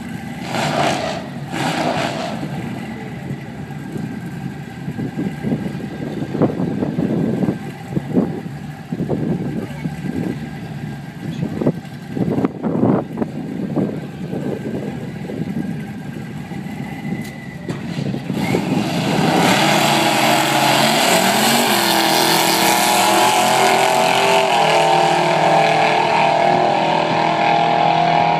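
Drag-racing cars idling roughly at the starting line with irregular throttle blips. About 19 seconds in both launch, and their engines run at full throttle down the strip, rising in pitch with stepped gear changes.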